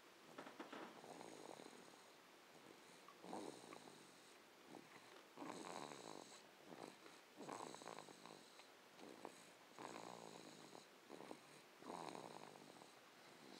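Faint snoring from a sleeper during a nap, one snoring breath every two seconds or so.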